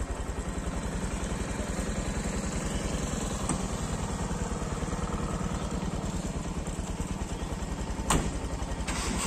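Motorcycle engine idling steadily, with one sharp click about eight seconds in.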